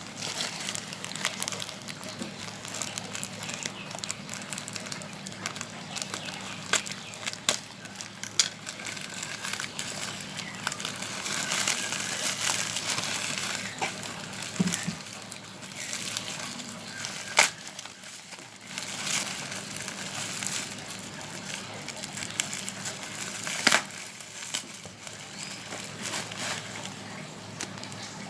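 A parcel's packaging being handled and opened by hand: continuous crinkling and rustling of wrapping with many small clicks, and a few louder sharp snaps, the loudest about two-thirds of the way through.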